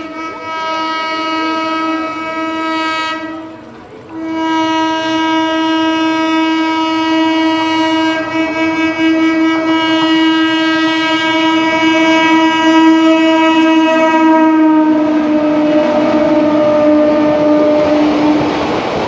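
An approaching train's horn sounds almost without a break: a short gap about three to four seconds in, then one long blast. Its pitch drops slightly as the train draws near. Over the last few seconds the rattle and rush of the train running past at speed rises under the horn.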